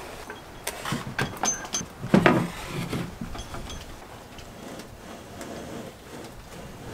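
A small OHV gas engine on its metal mud-motor base being pushed and slid across wooden boards: a run of knocks and scraping, with the loudest clunk about two seconds in, then fainter clicks and rubbing.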